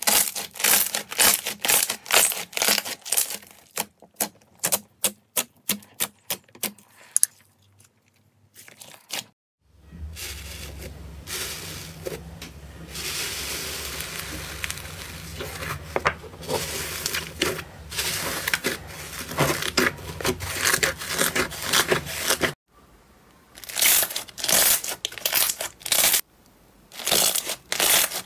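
Slime squeezed and pressed by hand: a rapid run of sharp wet clicks and pops as clear slime is kneaded, then from about ten seconds in a steady crackly fizz as hands press into fluffy rainbow cotton slime, and near the end clicky pops again as slime is worked in a bowl.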